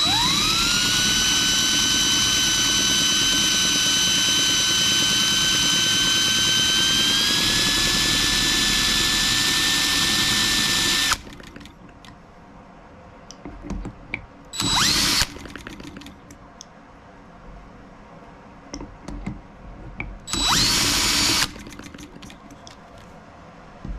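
DeWalt cordless drill spinning the crank of a miniature model M12B engine. The motor whine rises as it spins up, holds steady for about eleven seconds with a small step up in pitch partway, then stops, followed by two short bursts of about a second each. The engine turns over without firing, which the owner puts down to no compression from a valve-train problem.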